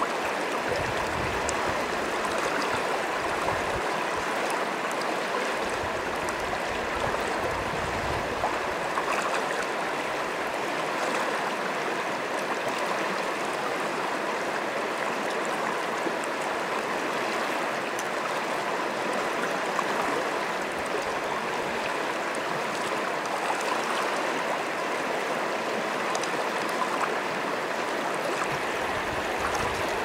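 Shallow mountain river rushing over stones in small rapids, heard close at the water's surface: a steady wash of water with no pauses.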